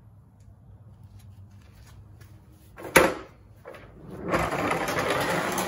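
Pittsburgh plastic mechanic's creeper on a concrete floor: a sharp knock about three seconds in, then from about four seconds a loud, steady rattle of its caster wheels rolling over the concrete.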